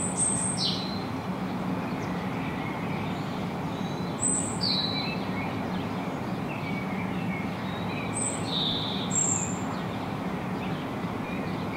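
A songbird singing short, high chirped phrases, repeated about every four seconds, over a steady low background noise.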